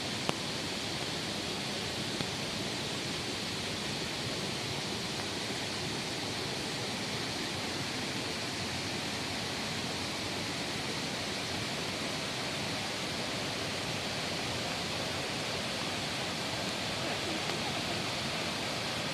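Cascading waterfall: a steady, even rush of falling water.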